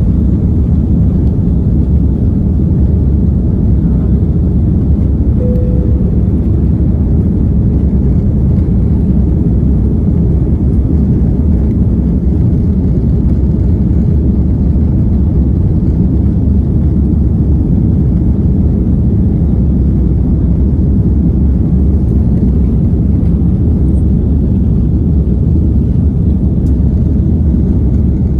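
Airliner cabin noise: the jet engines and rushing air heard from inside the cabin as a steady, loud, low-pitched noise.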